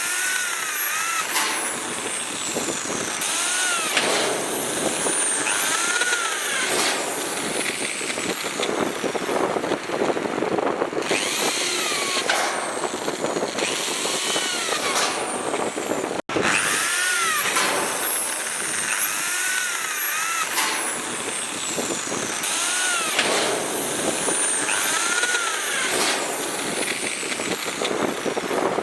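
Electric drill boring into steel, a continuous grinding noise with a screeching whine that rises and falls in pitch every second or two. The sound drops out for an instant about halfway through.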